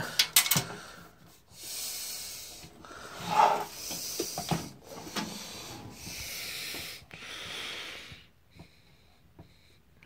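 Handling noise as a box fan is turned over by hand: its housing rubs and scrapes in several stretches of about a second each, with a few knocks, going quiet near the end.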